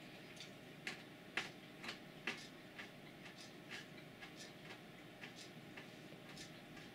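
Cat chewing almonds: irregular sharp crunches, louder in the first two or so seconds, then fainter and more scattered.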